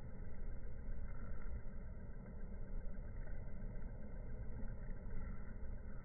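Steady, muffled low rumble of background noise with no distinct events.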